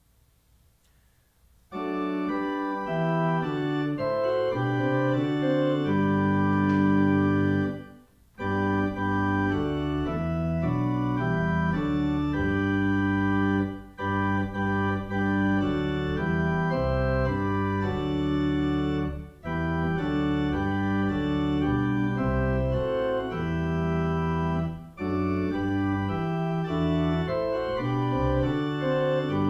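Church organ playing slow, sustained chords in phrases that break off briefly every five or six seconds; it begins about two seconds in after a moment of near silence.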